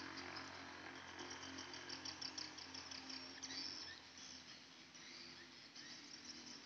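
Insects chirping faintly in a high, rapid pulsing trill that eases off about four seconds in, over a faint low steady hum.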